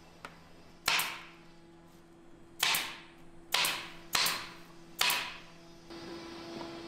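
Pneumatic nail gun firing five times into plywood, each shot a sharp crack followed by a short hiss of exhaust air. The first shot stands alone; the last four come about a second apart.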